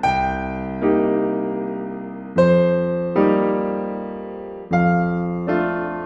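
Slow background piano music: six chords struck in pairs, each ringing and fading before the next.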